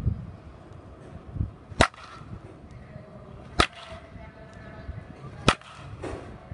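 Baseball bat hitting pitched balls in batting practice: three sharp cracks of contact, about two seconds apart.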